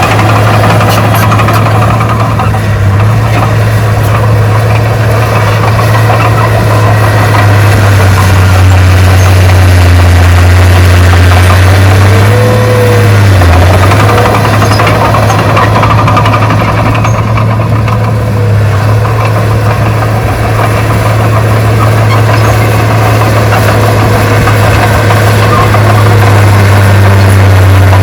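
Heavy diesel engine of earthmoving equipment running steadily and loudly, with a brief dip and recovery in engine pitch about halfway through.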